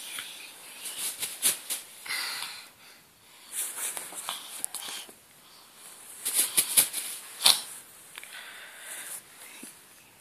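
Bedding and clothes rustling in irregular bursts, with sharp clicks and knocks, as small children squirm against each other and the pillow close to the microphone.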